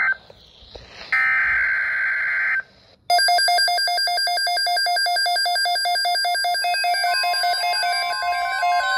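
Midland NOAA weather radio receiving an alert. First come two harsh data bursts of about a second and a half each, the broadcast's digital alert header, with short gaps between them. About three seconds in the radio cuts in with its own fast, repeating electronic beeping alarm as it decodes a severe thunderstorm watch.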